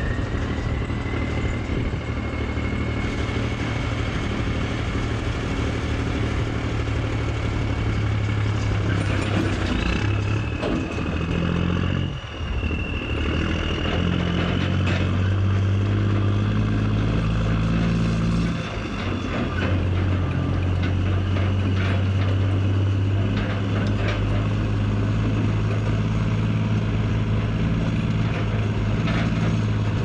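Semi truck engine pulling away and accelerating with a loaded trailer, a steady drone with a high whine that rises with engine speed. The engine note breaks and changes about twelve seconds in and again near nineteen seconds, as the truck shifts gear. Heard from the backhoe riding on the trailer, with rattle and wind mixed in.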